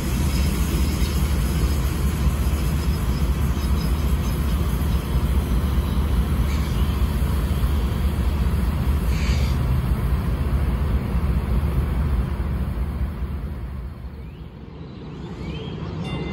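DART light rail train pulling away along the tracks, heard as a steady low rumble. The rumble drops away about 14 seconds in, and quieter street sound follows.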